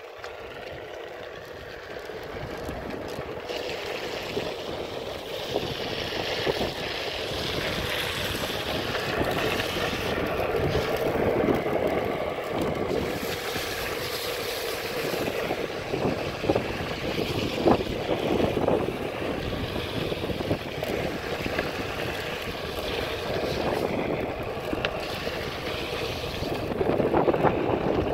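Onewheel electric board rolling downhill on wet asphalt: a steady rush of tyre noise on the wet pavement mixed with wind on the microphone, growing louder over the first several seconds as it picks up speed.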